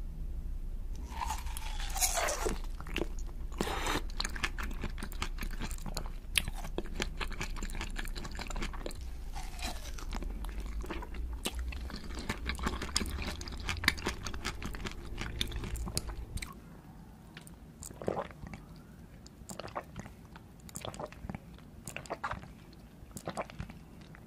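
Close-miked mouth sounds of biting into and chewing a blue jelly cube on a stick: a dense run of quick, wet clicks and crunches. They grow softer about two-thirds of the way through.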